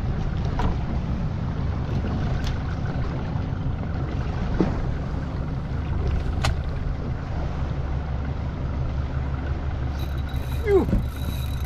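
Small fishing boat's engine running steadily at low revs, a low even hum, with a few light clicks and a brief vocal exclamation near the end.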